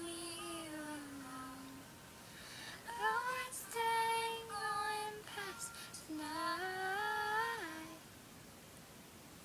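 A female voice singing a slow pop melody unaccompanied, in three long-held phrases that slide gently in pitch, with short pauses between them.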